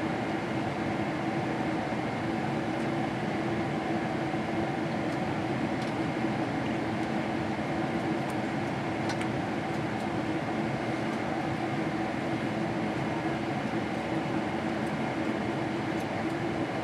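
Steady cabin drone inside a Boeing 777-300ER: engine and airflow noise with a constant low hum, unchanging throughout.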